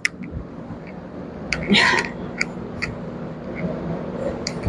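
Cleanup handling noises as wet towels wipe down a floor and walls: scattered light clicks and knocks, with a brief rubbing rustle about a second and a half in, over a faint steady hum.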